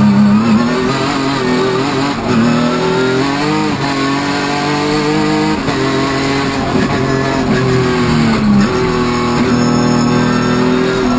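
Hyundai Genesis Coupe hill-climb race car's engine heard from inside the cabin under hard driving, its pitch climbing and dropping several times as the driver accelerates, lifts and shifts.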